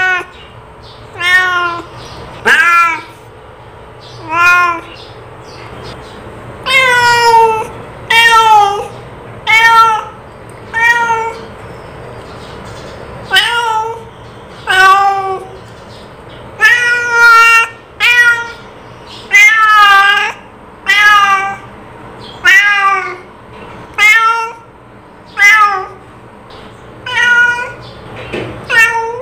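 A domestic cat meowing over and over, about twenty separate meows each under a second long, with short pauses between them.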